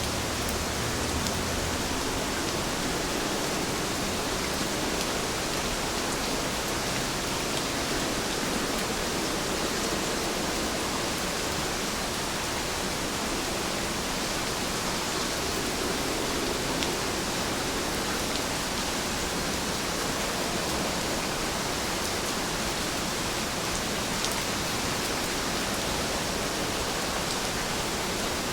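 Steady rainfall: an even hiss of rain with scattered faint drop ticks.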